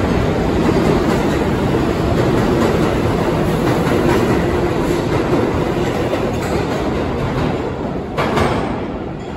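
New York City Subway 4 train pulling out of the station: the steady running noise of its wheels on the rails, easing off slightly near the end as the train draws away into the tunnel. A brief sharp burst of noise comes about eight seconds in.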